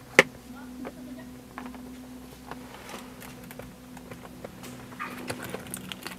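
Plastic clicks and taps of a mirror-type dashcam being handled and adjusted on its mount, with one sharp loud click just after the start and lighter taps after it, over a faint steady hum.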